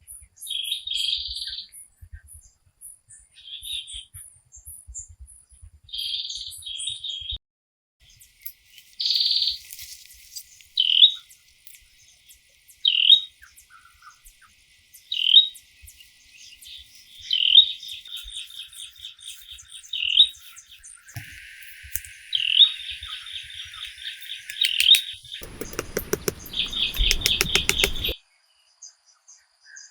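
Birds calling: short chirps repeated every couple of seconds, over fainter high-pitched twitters. Near the end a rapid clicking rattle sounds for about three seconds.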